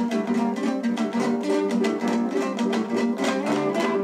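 Two-string Kazakh dombra strummed in a fast, steady rhythm of quick plucked strokes.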